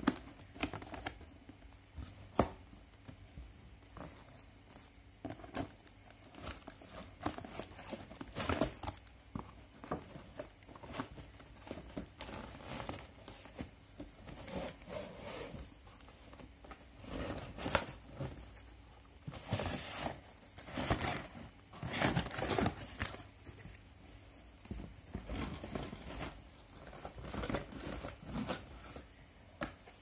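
Packaging being handled and unwrapped: irregular crinkling and rustling with some tearing, coming in louder clusters several times.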